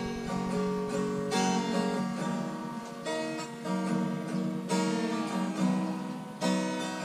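Acoustic guitar music, chords strummed again and again with a fresh strum every second or two.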